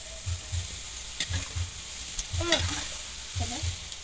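Chana dal (split chickpeas) frying in hot oil in a steel kadai: a steady sizzle, stirred now and then with a perforated steel ladle. A low double thud repeats about once a second underneath.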